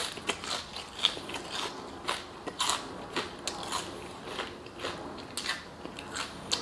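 Close-miked chewing of crispy fried food: a run of wet, irregular crunches and mouth clicks, a few each second.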